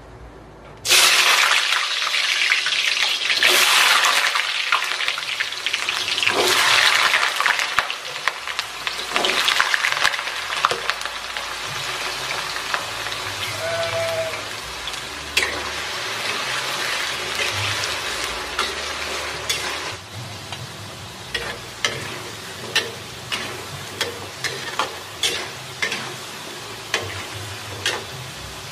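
Diced potatoes going into hot oil in a wok about a second in, with a sudden loud sizzle. It settles into steady bubbling deep-frying. Toward the end the hiss thins and scattered sharp pops and crackles of spattering oil stand out.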